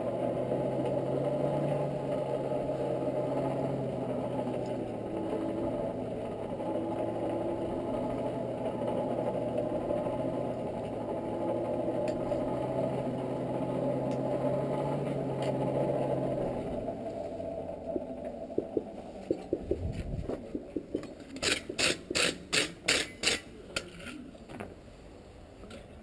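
Hand-cranked forge blower whirring steadily with a low hum as it blows air into the coal fire to bring the piece to welding heat. It winds down and stops after about 17 seconds, and is followed by a quick run of light metallic clinks, about two or three a second.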